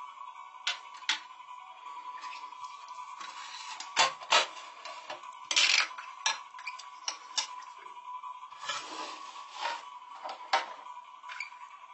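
A metal tin case handled and its lid shut, with small plastic toy figures set down beside it: a string of clicks, knocks and light metallic clatters, the loudest a pair of knocks about four seconds in and a longer clatter shortly after. A faint steady high tone runs underneath.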